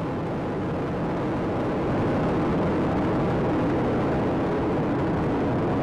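Steady rumble of Space Shuttle Atlantis climbing on its three main engines and two solid rocket boosters, a little louder about two seconds in.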